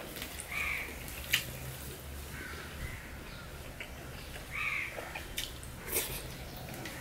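Eating by hand from a stainless steel plate: fingers mixing rice against the metal, with two sharp clicks, one about a second in and one near the end, and soft chewing. A bird calls three times in the background in short, arched calls.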